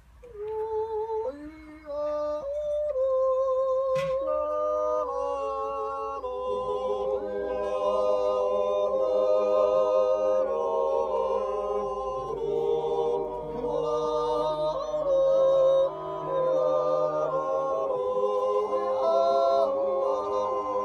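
A group of Silvesterchläuse singing a Zäuerli, a wordless yodel in several-part harmony: long held chords that step from one to the next, the voices coming in just after the start. A single sharp click about four seconds in.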